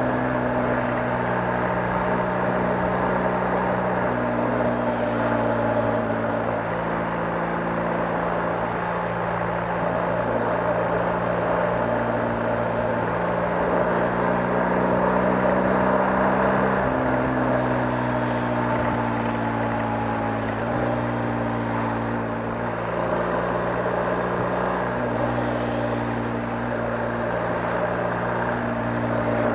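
BMW R 1250 GS boxer-twin engine running steadily, its note stepping up and down every few seconds, with a steady hiss of road noise.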